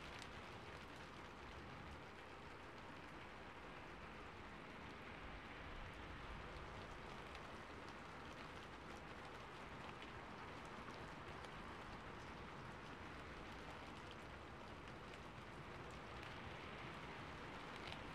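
Faint, steady rain: an even soft hiss with scattered light drop ticks.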